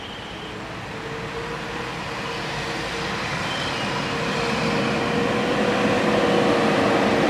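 A bus approaching, its engine and road noise growing steadily louder, with a steady hum in the sound from about a second in.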